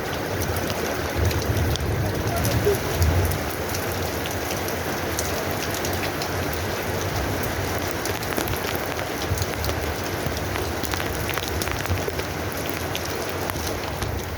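Steady rain falling, an even hiss speckled with many small drop ticks, with low rumbling swells in the first few seconds.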